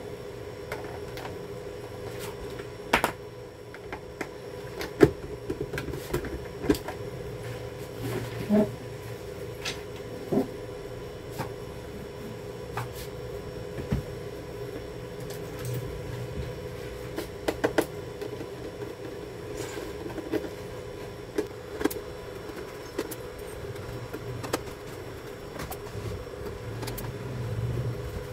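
Scattered clicks and knocks of hands and tools on a PC monitor's plastic back as the stand is taken off and a screwdriver is picked up and set to the cover, over a steady hum.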